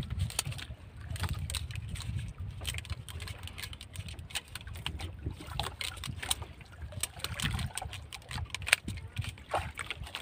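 Fishing handline and sabiki rig being paid out by hand from a wooden spool over a boat's side: irregular small clicks and taps of the line and tackle, over a steady low rumble of water and wind around the hull.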